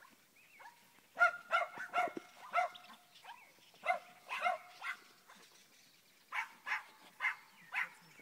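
Small dog, a Bichon, barking in quick high yaps. The barks come in three runs, each of several barks a few tenths of a second apart, with short pauses between the runs.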